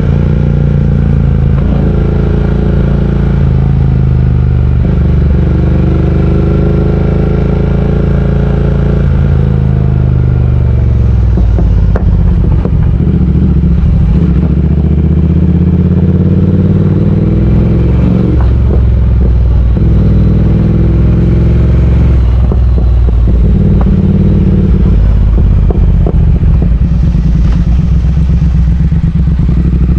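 Triumph Speed Twin 1200 parallel-twin engine running under way, its pitch falling and rising with throttle and speed. Through the middle there is a run of rapid crackling and knocking over a low steady engine note.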